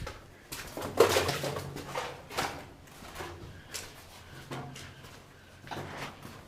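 Footsteps: a run of irregular scuffs and knocks, about one to two a second.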